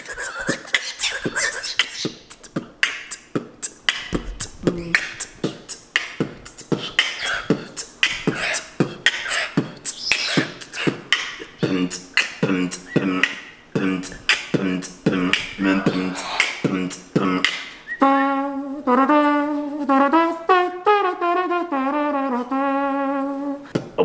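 A man beatboxing: a fast, steady run of mouth-made kick, snare and hi-hat pops and clicks. About three quarters of the way through it changes to a held, wavering vocal tone that steps down in pitch.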